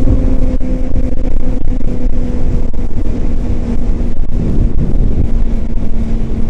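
Inline-four engine of a Honda CBR650F with an Akrapovic titanium exhaust, running at a steady pitch while cruising at highway speed, with wind buffeting the helmet microphone.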